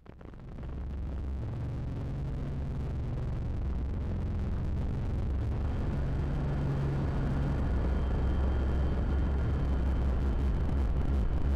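Opening of a minimal industrial synthesizer track: a low synth drone with sustained bass notes under a noisy hiss. It fades in over the first second and grows slowly louder, and a fast pulsing rhythm starts near the end.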